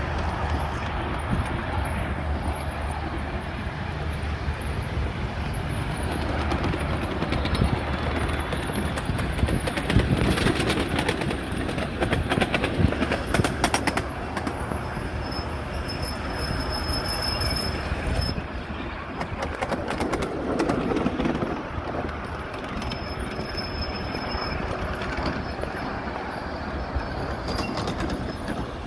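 3-foot gauge steam train with its open passenger cars rolling by on the rails: a steady rumble, a run of clicks from the wheels over the track about a third of the way in, and twice a thin high squeal from the wheels.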